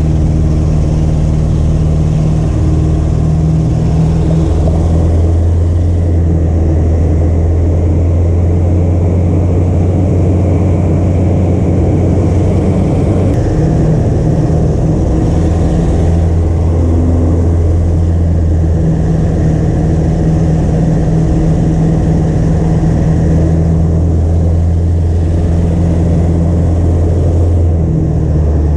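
Light single-engine propeller aircraft in flight, its engine and propeller giving a steady low drone mixed with airflow noise, heard inside the cockpit.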